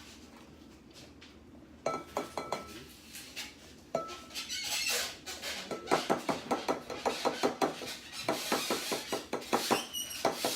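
A utensil stirring in a bowl, clinking and scraping against its sides in quick, even strokes, starting about two seconds in.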